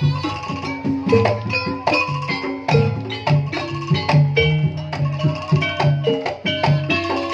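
Jaranan gamelan accompaniment playing: struck pitched metal percussion over drum strokes in a brisk, repeating rhythm.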